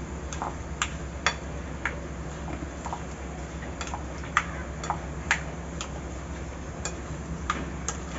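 Spoon clicking against a bowl at irregular intervals, about two a second, as chicken is stirred into a marinade of curd and spices. A low steady hum runs underneath.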